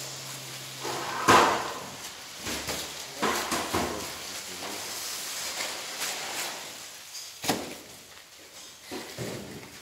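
Handling noise from packing fish: plastic bags rustling, with a series of knocks and clatters from crates and work surfaces. The loudest is a sharp knock about a second in, and there is another single knock near the three-quarter mark.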